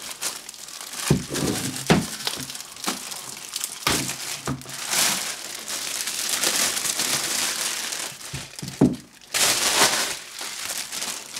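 Thin clear plastic bag crinkling and rustling as a radio is pulled out of it, louder about five seconds in and again near ten seconds in, with a few soft knocks as the radio is handled.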